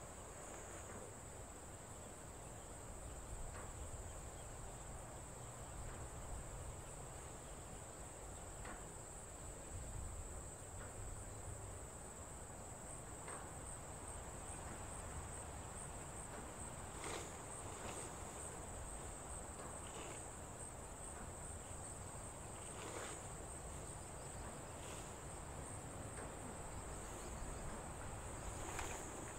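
Steady high-pitched insect trill. Now and then there are brief rustles and clicks of tent fabric and a tent pole being handled, the most distinct a few times in the second half.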